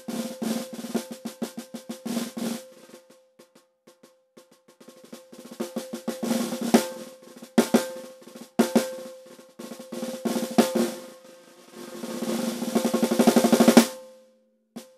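Snare drum played with wooden sticks in a written study: runs of strokes and accents, soft and sparse a few seconds in, then louder. Near the end a roll swells to a loud peak and stops abruptly.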